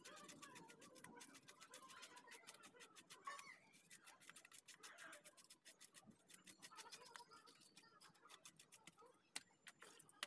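Faint, rapid clicking and scraping as scales are scraped off a fresh fish, many small clicks a second.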